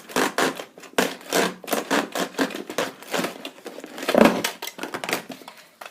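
A Nerf gun being pulled from its packaging: an irregular run of plastic clicks, rattles and rustles, with a louder knock about four seconds in.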